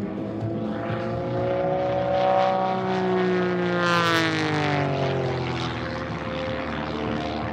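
Pitts S-1S aerobatic biplane's propeller engine running hard through a manoeuvre close overhead. Its pitch rises, then drops steeply as it passes about four seconds in, with a brief rush of propeller noise at the closest point.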